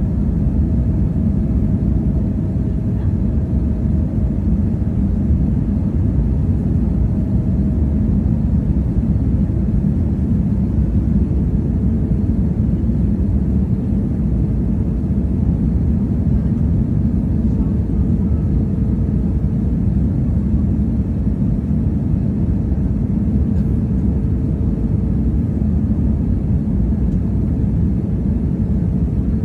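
Airliner landing: a steady, loud, low rumble of engine and airflow noise, with a faint hum over it that settles lower in pitch partway through.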